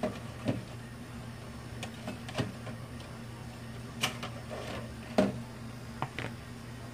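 Several light knocks and clacks of kitchen things being handled on a counter, the loudest about five seconds in, over a steady low hum.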